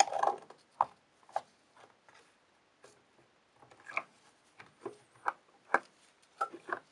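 Rusty steel scissors and a wire being handled in a plastic tub of water, set up for electrolysis rust removal: irregular sharp clicks and taps of metal against plastic, starting with a brief clatter.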